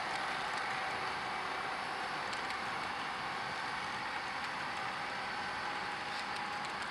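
Model train rolling along layout track: a steady rush of wheels and motor, with a few faint clicks.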